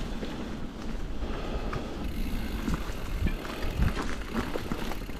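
Bicycle rolling over a bumpy dirt track: a steady tyre rumble with wind buffeting the microphone, and scattered clicks and rattles from the bike jolting over bumps.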